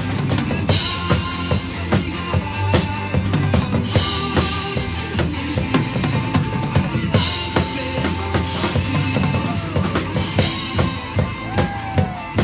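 Drum kit played at a steady driving beat along with a backing track: fast kick and snare strikes, with a cymbal crash about every three seconds.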